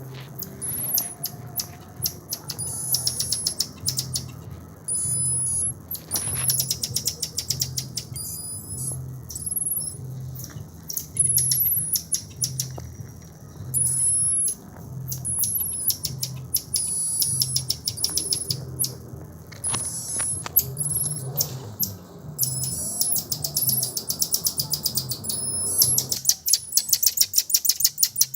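High-pitched chirping calls and rapid clicking trills, bird-like, over a low pulse repeating about every three-quarters of a second.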